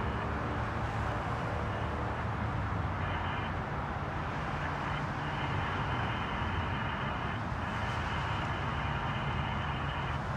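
Steady road traffic noise with a low engine hum. A faint high ringing tone comes and goes several times.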